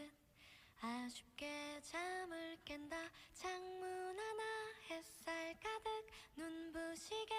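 A woman singing a slow melody in a single voice, holding long notes with short breaks between phrases.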